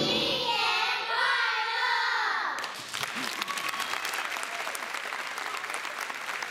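Dance music over the sound system ends abruptly about two and a half seconds in, and audience applause follows, a dense patter of many hands clapping.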